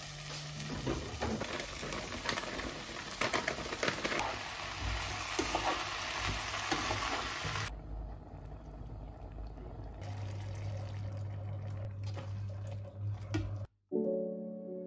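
Diced pumpkin, potato and onion frying in a pot, with a spatula stirring and scraping. After a cut there is quieter simmering and a steady low hum. Soft music begins near the end.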